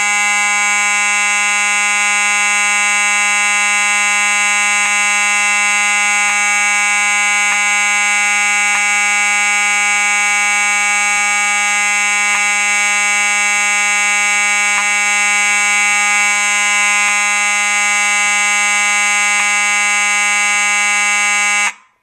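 Faraday 6226-W mechanical fire alarm horn sounding loud and continuous on one steady pitched tone, cutting off suddenly near the end. The horn and strobe are wired together, so the horn gives a slight skip every second or two as the strobe flashes. Only one of the two units is sounding: the other was wired with its terminals reversed, positive to negative.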